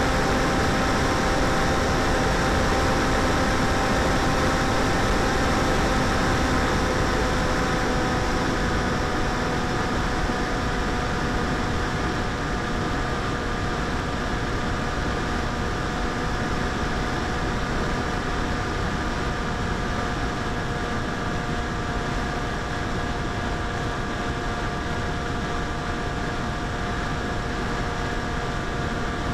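Electric motor and propeller of a 900mm Popwing flying wing whining steadily in flight, heard from on board, with rushing wind noise. Its pitch drops slightly and it gets a little quieter about a third of the way in.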